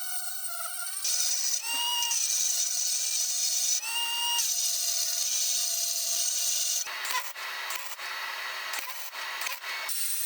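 Power grinder grinding a silicon-bronze weld repair flush on a cast iron exhaust manifold: a steady motor whine over a rasping hiss of abrasive on metal. The whine rises in pitch briefly about two and four seconds in, and the sound turns rougher and scratchier about seven seconds in.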